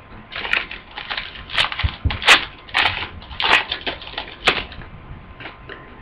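A foil trading-card pack wrapper being torn open and crinkled, a quick run of rustles and crackles with a few sharp clicks, stopping near the end.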